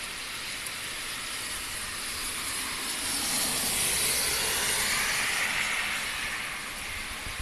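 Heavy rain hissing steadily on an asphalt road. Over the middle few seconds a louder rushing swell builds and fades.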